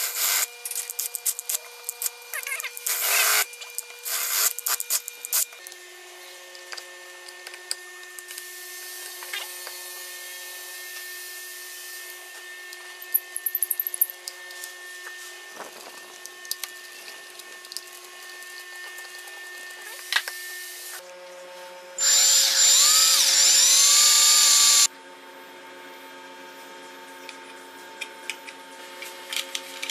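Electric drill boring into a hardwood block, with loud bursts as the bit cuts. After a quieter stretch of hand work, a power tool motor runs loudly for about three seconds, its pitch rising and falling. Near the end come light metallic clicks of a wrench on a nut.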